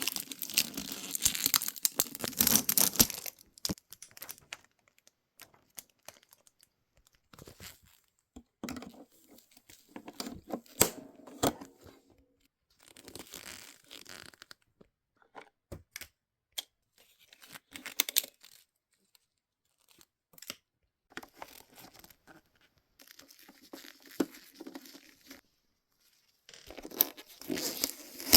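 Toy packaging being torn and handled during an unboxing: tearing and crinkling in irregular bursts with short pauses, the longest and loudest burst in the first three seconds.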